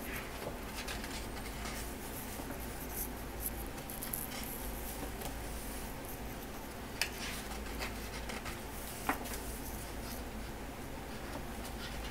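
Pages of a large photobook being handled and turned by hand: soft paper rustles with a few light taps, over a steady low background hum.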